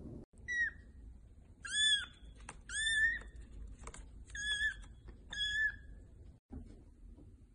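Very young tabby kitten mewing: five high, short mews about a second apart.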